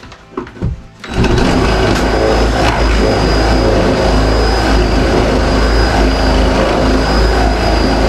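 An electric power tool starts about a second in and runs steadily and loudly, a high whine over a low rumble.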